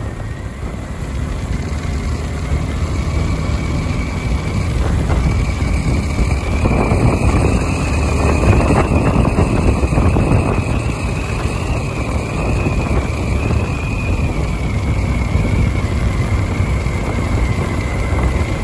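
Motorcycle riding at road speed: wind buffeting the microphone over the engine and road noise, with a thin high whine that rises a little in the middle and settles back.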